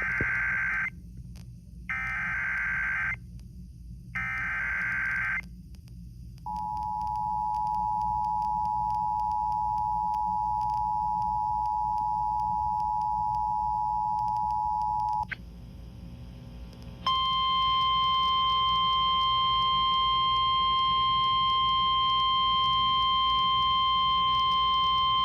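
Emergency Alert System activation on FM radio, signalling a severe thunderstorm warning. It opens with three short bursts of the screeching digital header, then the steady two-tone attention signal for about nine seconds. After a brief gap comes a single steady alert tone for about nine seconds.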